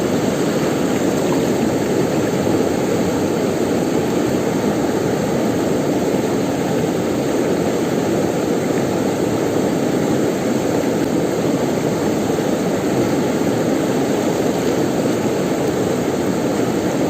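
Rushing river water: a loud, steady rush with no breaks.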